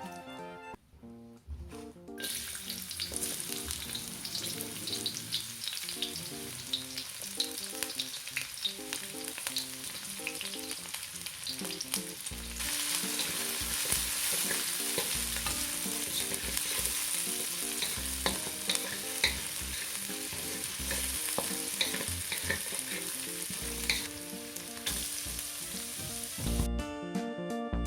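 Food frying in oil in a pan: a steady sizzle with scattered pops. It starts about two seconds in, grows louder about halfway through and stops shortly before the end.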